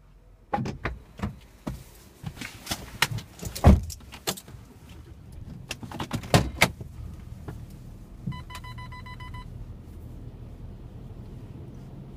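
Automatic car wash entrance doors clattering open, a string of sharp knocks and clanks over several seconds. A rapid electronic beeping follows for about a second, then a steady low rumble as the car rolls into the wash bay.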